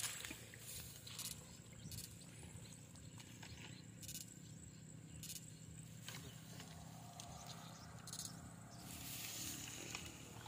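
Faint rustling and swishing of wet grass as an electrofishing probe pole is pushed through it, with scattered light clicks and a louder swish about nine seconds in.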